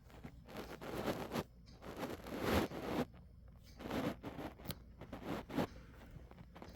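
Several short rustling, scraping sounds close by, the loudest about two and a half seconds in, with another pair around four and five and a half seconds.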